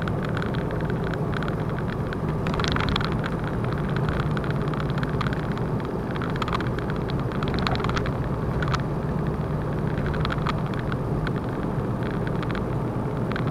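Lorry cab noise while driving: a steady engine and road rumble, with a few short clicks and rattles scattered through it.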